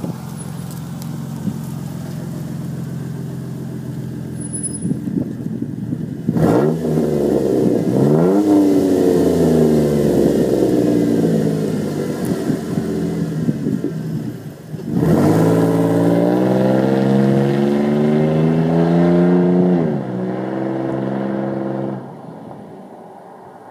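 Unmuffled exhaust of a 2007 Jeep Wrangler JK's 3.8-litre V6, running through a turn-down tip with no muffler. The engine runs steadily at first, then accelerates hard twice, about six and fifteen seconds in, its pitch climbing and dropping back each time as the Jeep drives past, before fading near the end.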